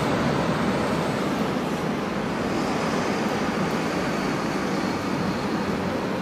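Steady city street traffic noise: an even wash of passing cars with no distinct events.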